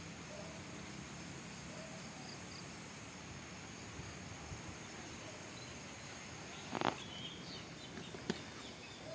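Rural outdoor ambience: a steady drone of insects with faint bird chirps. A short, sharp knock about seven seconds in, with a smaller click just after eight seconds.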